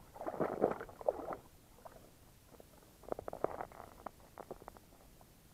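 A fish hauled up through a hole in the ice and thrashing on the snow: a burst of wet scuffing in the first second and a half, then a run of short slaps about three seconds in.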